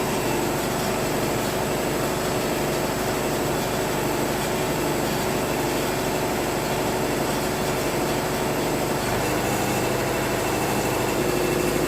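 Wood-Mizer LT70 sawmill's power unit running steadily just after start-up, with nothing moving yet because the controls are locked while its computer loads.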